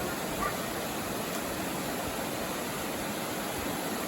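Mountain stream water flowing steadily, an even rushing noise.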